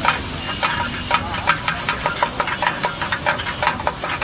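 Metal spatula scraping and clanking against a wok in quick, irregular strokes, about three or four a second, as food is stirred and tossed, over a steady hiss of frying.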